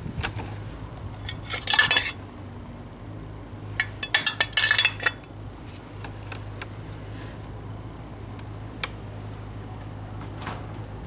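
Metal parts clinking and rattling against each other in two short spells, over a steady low hum.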